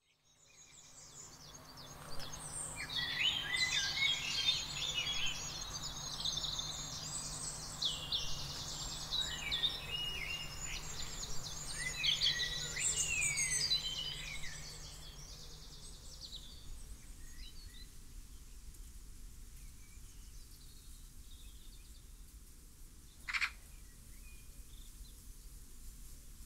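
A dense chorus of many birds chirping and chattering over one another. It thins out after about fourteen seconds, and a low steady hum under it stops at the same point. One short, sharp, loud note comes near the end.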